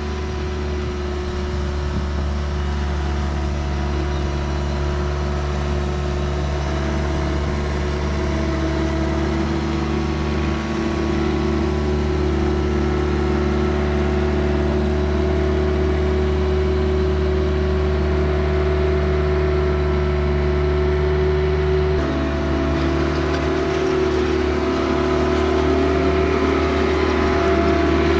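Diesel engine of a compact earthmoving machine running steadily at constant speed; its note shifts slightly about three quarters of the way through.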